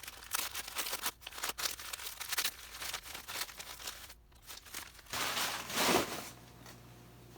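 Packing material crinkling and rustling as it is handled and unwrapped, a run of quick irregular crackles, then a louder rustle about five seconds in before it goes quiet.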